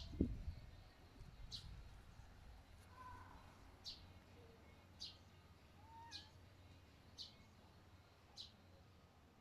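Faint outdoor birdsong: a bird repeating one short, high call about once a second, with a few softer chirps from other birds. A low thump sounds right at the start.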